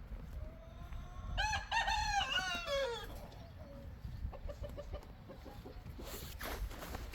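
A rooster crowing once, starting about a second in and lasting about two seconds, its last note sliding down. Soft repeated hen clucking follows near the middle.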